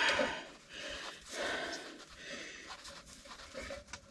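A person breathing hard in several puffs while working in a cramped crawl space, with faint handling noise from wire.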